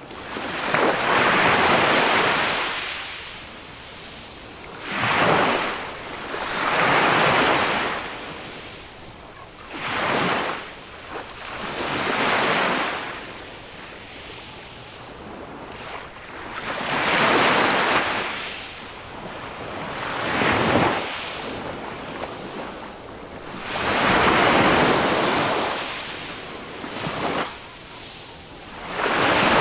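Small waves of a calm sea breaking and washing up a sandy beach, each surge of surf rising and falling away every three to five seconds.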